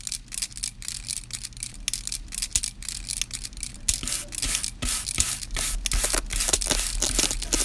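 Irregular crackling and scratching noise, many short dry bursts over a steady low hum, growing denser and louder about four seconds in.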